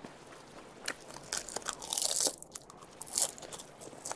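Close-miked chewing of a mouthful of seaweed-wrapped baked California maki, a run of crisp crunches that is loudest around the middle, with one sharp crunch about three seconds in.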